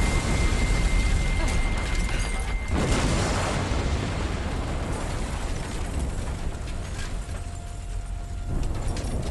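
Drone missile strike explosions, as film sound effects: a heavy low rumble with a steady high ringing tone over its first few seconds, a fresh sharp blast about three seconds in, then the rumble slowly dying down.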